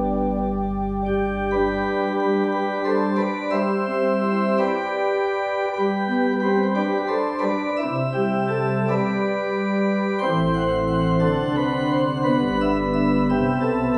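Organ playing slow, held chords. The deep bass notes stop about two seconds in and come back about ten seconds in.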